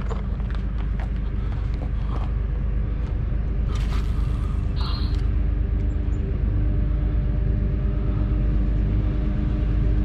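Train crossing a railroad bridge over a creek: a steady low rumble that grows slightly louder, with scattered clanks and knocks. A steady hum joins about two thirds of the way in.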